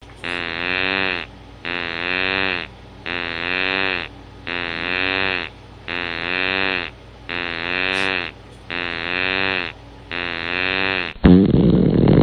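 A low, drawn-out pitched call repeated eight times in a steady rhythm, each about a second long and all alike, like one call looped. Near the end it gives way to a sudden loud, rough blast.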